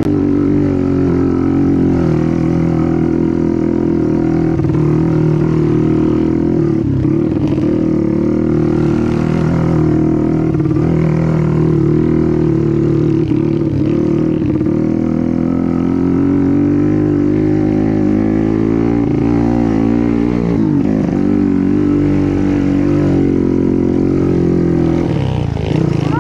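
Motorcycle engine running steadily as the bike is ridden, its pitch briefly dipping and climbing again with the throttle a few times near the end.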